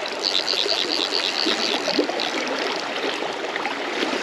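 Fast-flowing river water rushing steadily around the wading angler. Early on there is a rapid run of high ticks, about eight a second, lasting about a second and a half.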